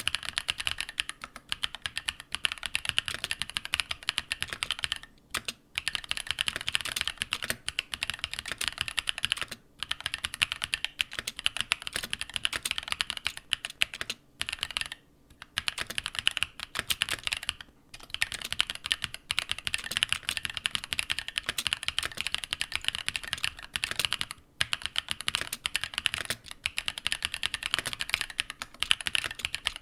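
Fast, continuous typing on a mechanical keyboard with linear switches, a dense clatter of keystrokes. It stops for a moment about five times, near 5, 10, 15, 18 and 24 seconds in.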